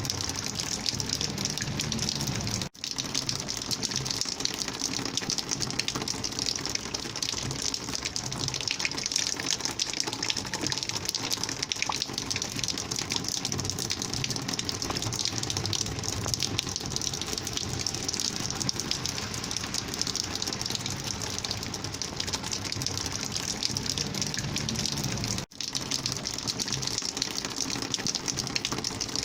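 Rainwater flowing in a steady rushing gush, cutting out for an instant twice: about three seconds in and near the end.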